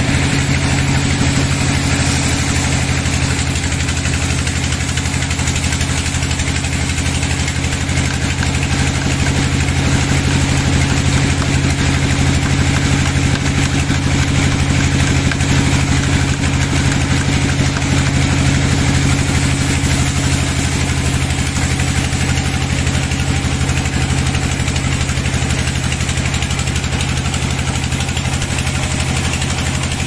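Sawmill band saw running steadily and sawing a teak log: a loud, constant machine drone under an even hiss.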